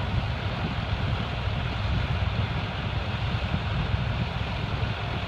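A vehicle running: a steady low rumble with a hiss over it.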